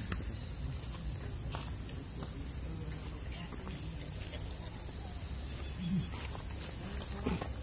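Steady high-pitched insect drone, with a low rumble underneath and a couple of faint short sounds near the end.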